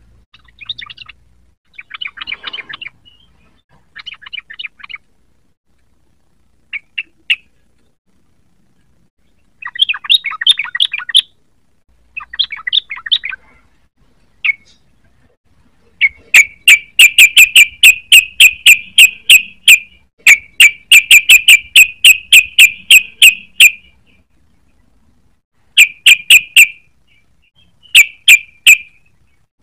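Yellow-vented bulbul song: scattered short chattering phrases, then, past the halfway point, loud rapid-fire runs of sharp repeated notes, about five a second. There are two long runs and a few short bursts near the end.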